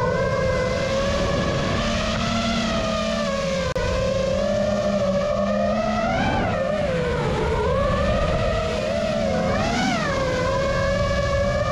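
Quadcopter drone's motors and propellers whining, heard from the GoPro mounted on the drone. The pitch holds fairly steady, then swings up and down sharply about six seconds in and again near ten seconds as the throttle changes, over a steady rumble of wind.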